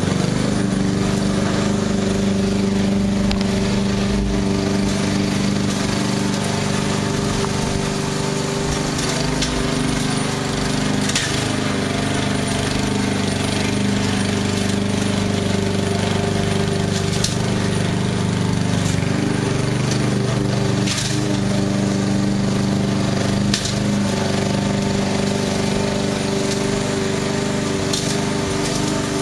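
Robot lawnmower's engine running at a steady speed while it mows, an even hum, with a few short ticks.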